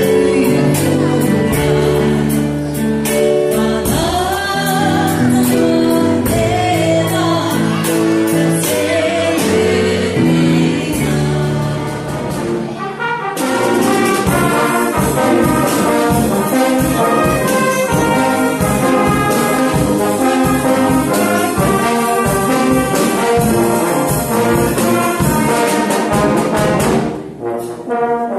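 Music led by brass instruments playing sustained notes over a steady beat, with some singing. The music changes abruptly about thirteen seconds in.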